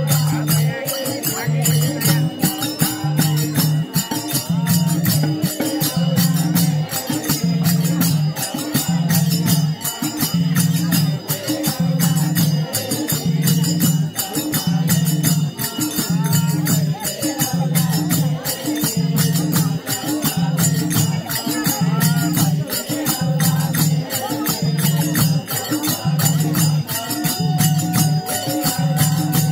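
Nepali bhajan music: several khaijadi frame drums and a two-headed barrel drum played together in a fast, steady rhythm, with a low beat repeating about once a second.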